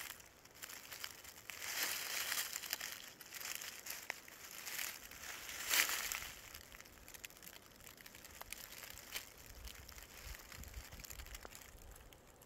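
Footsteps crunching and rustling through dry fallen leaves, loudest in the first half with a sharp peak about six seconds in, then fading.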